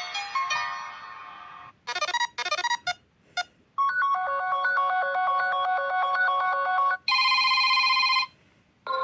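Sony Xperia XA stock ringtones played one after another. One melody fades out, then come a few short choppy bursts. About four seconds in, a bright electronic melody with a repeating pattern plays for about three seconds. A held, buzzy chime follows for about a second, and the next tune starts at the very end.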